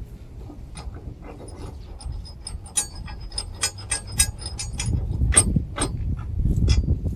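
Metal clinks and taps of a lawnmower blade and hand tools being fitted onto the blade adapter, a run of short sharp clicks, with low handling thuds near the end.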